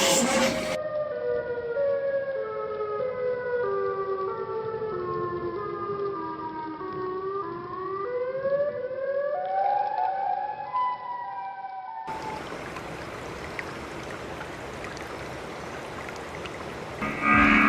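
Electronic sci-fi tone, a siren-like run of short gliding notes that steps down in pitch and then climbs back up, a cartoon UFO-style sound effect. About twelve seconds in it cuts off to a steady rushing noise.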